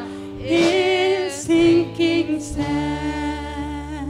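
Worship band music: a woman singing long held notes without clear words over the band's chords, with a low bass note coming in about two and a half seconds in.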